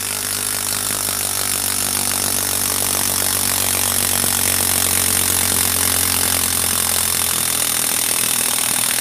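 Bosch PS41 12V Max impact driver hammering steadily in reverse, a rapid rattle of impacts over the motor's whine, as it backs a long TimberLOK screw out of hardwood.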